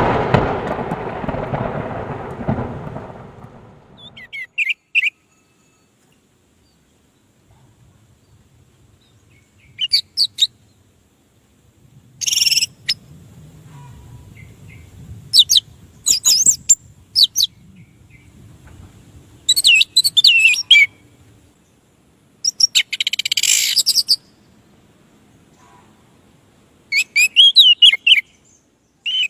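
Orange-headed thrush singing in short bursts of rapid, twisting high notes, with gaps of a few seconds between phrases. A loud rushing noise fades out over the first few seconds.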